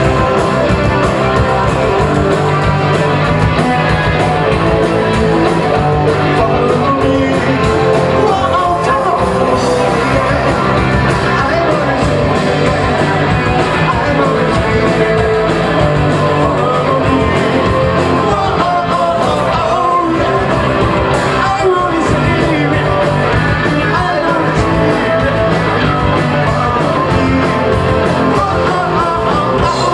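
Live rock band playing loudly, with electric guitars, bass and drums behind a sung lead vocal.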